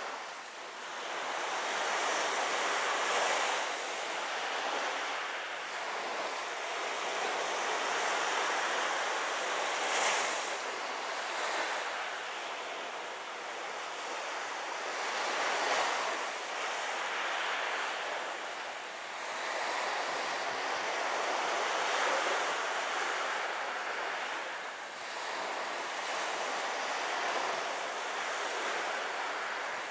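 Small waves washing on a shore: a steady hiss that swells and eases every few seconds.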